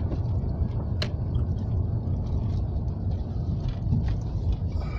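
Inside a moving car: a steady low rumble of engine and tyres on the road. Two sharp ticks, about a second apart, come near the start.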